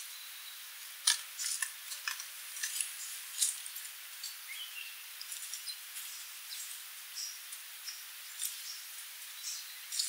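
Sooty babblers giving short, sharp, high-pitched call notes, scattered irregularly, over a faint steady hiss.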